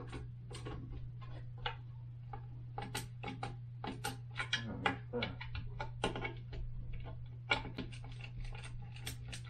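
Irregular light clicks and taps of hands and a tool working on a toilet seat's hinge screw, which has stripped out and won't tighten, over a steady low hum.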